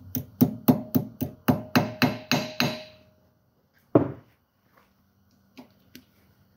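Small hammer tapping a new steel cotter pin down through the castle nut and axle end to lock the axle nut. It goes in quick metallic taps, about four a second with a ringing note, stopping about three seconds in. A single knock follows about a second later, and faint clicks come near the end.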